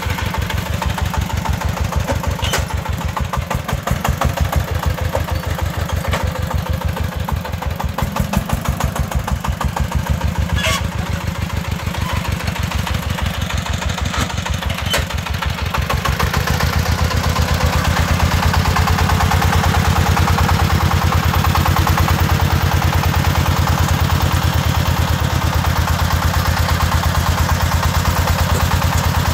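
Single-cylinder diesel engine of a công nông farm dump truck chugging steadily at low revs. From about halfway through it runs louder and fuller as it works to tip the loaded dump bed.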